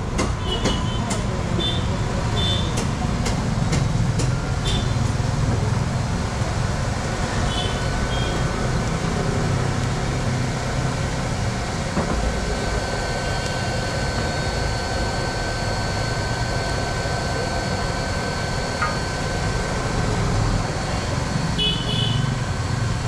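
Steady rushing noise of a wood fire burning hard in a turbo stove fed by its small 12-volt electric blower, mixed with street traffic. A few short high beeps come near the start and again near the end.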